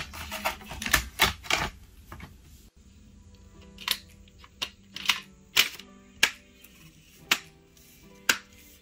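Sharp plastic clicks and knocks from an Alienware 17 R4 laptop's chassis and panels being handled and pressed back into place during reassembly. There is a quick cluster of clicks in the first second and a half, then single clicks every half second to a second.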